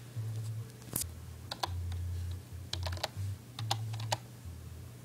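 Computer keyboard being typed on: scattered key clicks, singly and in quick runs of two or three, over a low hum that cuts in and out.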